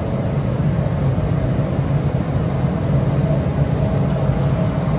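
Steady low mechanical hum with a constant drone and a faint higher steady tone above it, not changing in level.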